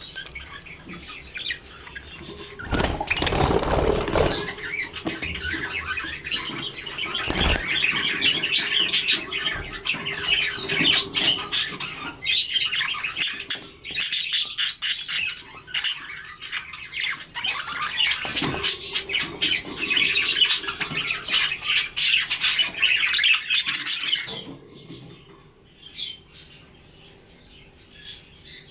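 Several budgerigars chattering and squawking in a cage, with a burst of close wing flapping near the start as a bird flutters onto a hand. The chatter stops about 24 seconds in, leaving a few faint chirps.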